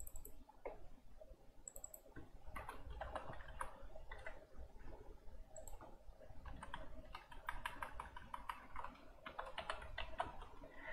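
Faint computer keyboard typing, keystrokes coming in quick runs with short pauses between them.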